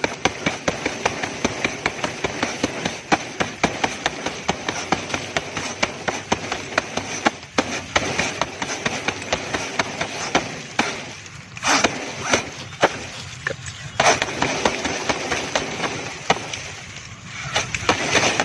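A blade hacking rapidly into banana tree trunks: a quick run of sharp chopping strikes, about three a second, then more scattered strikes with short pauses, until the trunk is felled.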